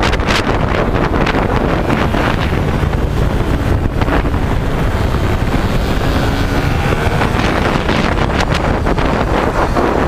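Heavy wind buffeting on a helmet-mounted camera's microphone at racing speed, over the running of small racing motorcycle engines. A faint engine note rises and falls in the middle as the bike works through the corners.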